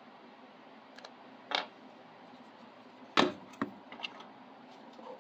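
A few small clicks and a sharp knock of tools and hardware being handled, with a short scrape about a second and a half in, over a faint steady hum.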